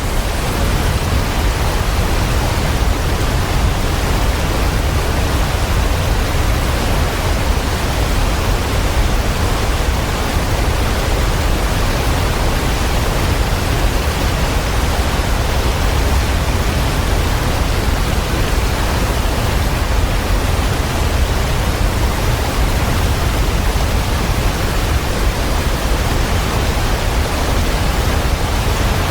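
Steady rushing water, a dense even hiss with a deep rumble underneath and no change throughout.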